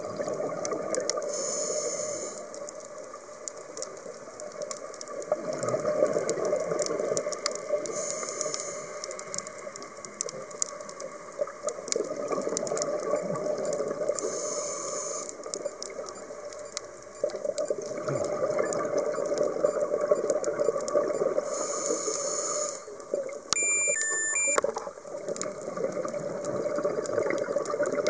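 Scuba diver breathing through a regulator underwater: a long bubbling exhale swells and fades, then a short hiss of inhalation, repeating about every six or seven seconds. A brief electronic beep of a few stepped tones sounds about three-quarters of the way through.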